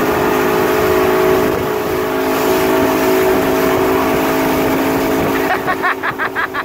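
Towing motorboat's engine running steadily at speed, with water rushing in the wake. Near the end a rapid series of short pulses cuts in over it.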